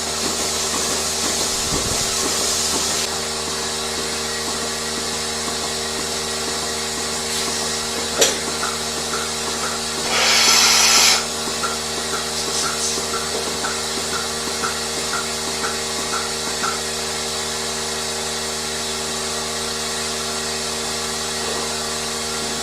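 Steady hum of running machinery, made of several constant tones. A sharp knock comes about eight seconds in, a hiss lasting about a second comes around ten seconds in, and a row of faint short pips, about two a second, runs through the middle.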